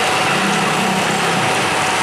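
Small road engines running in heavy rain: motorcycles and an auto-rickshaw passing on a wet road, over a steady hiss. One engine's note stands out for about a second near the start.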